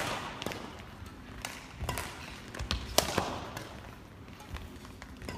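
Badminton rally: a string of sharp cracks as rackets strike the shuttlecock, roughly every half-second to second, the loudest about three seconds in, each ringing briefly in a hall's echo, with players' footfalls on the court between them.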